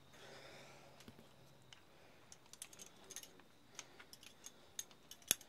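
Scattered light clicks and taps, sparse at first and busier in the second half, with one sharper click near the end.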